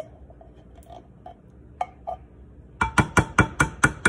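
A metal spatula scraping faintly inside a tin can of cream of chicken soup, then, a little under three seconds in, rapid clinking taps, about five a second, as the last of the thick soup is knocked out of the can.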